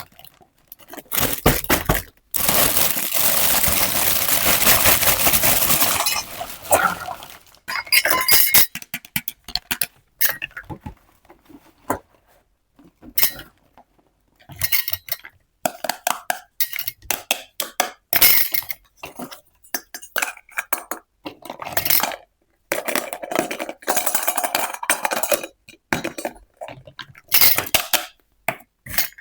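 Small miniature toy kitchen pieces (tiny dishes, pots and utensils) clinking and tapping against each other as they are unpacked and handled, in irregular clusters of light clicks. About two seconds in, a steady noise lasts for about four seconds.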